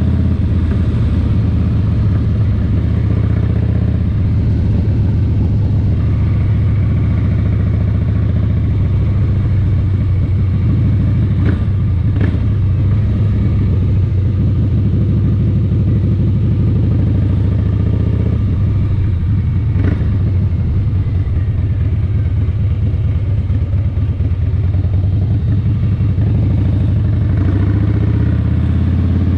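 A vehicle engine running steadily with a deep, continuous rumble, broken by a few sharp clicks in the middle.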